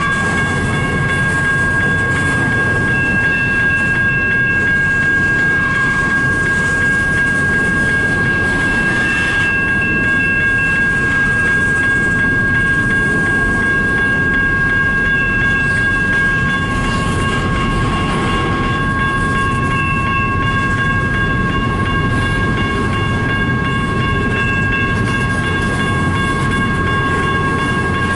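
Double-stack freight train cars rolling slowly past: a steady low rumble of wheels on rail, with a continuous high-pitched squeal held throughout.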